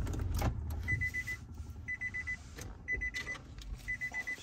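Car's warning chime beeping about once a second, four times, each beep a rapid high flutter, sounding because the engine has been switched off with the car still in drive. The low hum of the engine dies away just before the chime starts.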